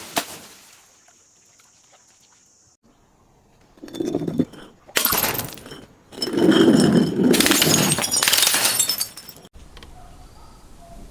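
Glass breaking and being crushed: a short crunch about 4 s in, another about a second later, then a longer stretch of crackling, crunching glass that stops about 9.5 s in.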